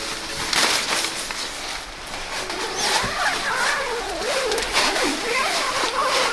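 A tent door zipper being pulled open, with the nylon fabric of the inner-tent panel rustling as it is drawn back from the mesh.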